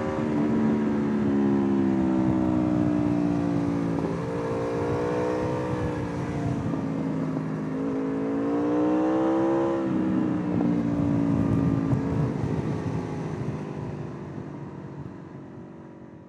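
Aprilia RSV4 R's V4 engine, heard from the rider's position: the engine note falls, climbs twice as the throttle is opened again, then drops back and fades away near the end.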